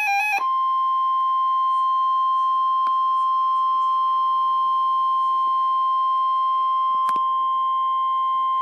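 Emergency Alert System broadcast for a tropical storm watch: the last of the warbling SAME digital header bursts, then a single steady alert tone near 1 kHz (the 1050 Hz weather-radio warning tone) that holds on without change.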